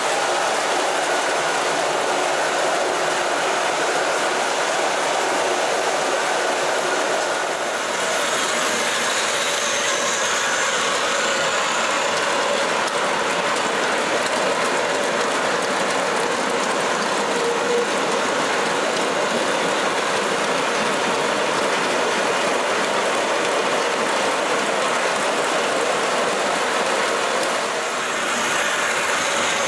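Long O gauge model goods train hauled by two Ace Trains Stanier locomotives running on its track: a steady clatter of many small wagon wheels over the rails. The level dips briefly twice.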